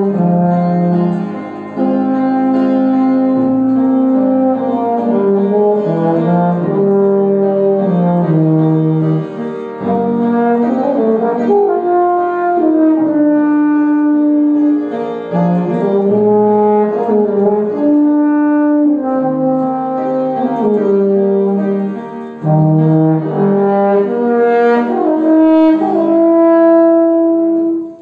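A rotary-valve brass horn playing a slow melody of held notes, with upright piano accompaniment. The horn pauses briefly for breath a few times, about a second and a half in, near ten seconds and past twenty-two seconds.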